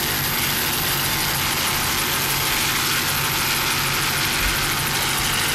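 Steady engine drone under a constant rushing noise, with no change in pitch or loudness.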